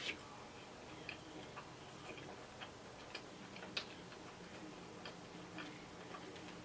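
Faint, irregular small clicks and smacks of a person eating and chewing food close to the microphone.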